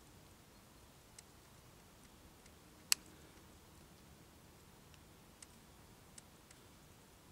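Quiet background with a few short, sharp clicks scattered through it. One much louder click comes about three seconds in, and fainter ones follow later.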